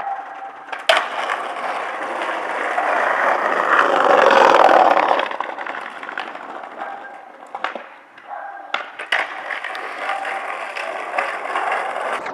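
Skateboard wheels rolling over pavement, growing louder to a peak about four to five seconds in and then fading. Several sharp clacks of the board hitting the ground are heard, one about a second in and a few more in the second half.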